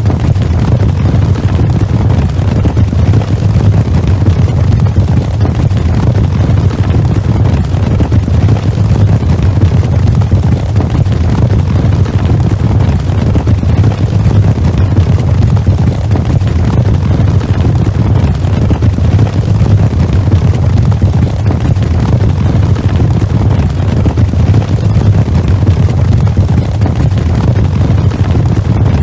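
Cavalry charge sound effect played fast: a very loud, dense, unbroken rumble of massed galloping hooves, heaviest in the low end, with no bugle or music standing out.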